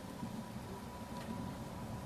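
Wood fire burning in a fireplace: a steady low rumble of flame with a single faint crackle a little past a second in.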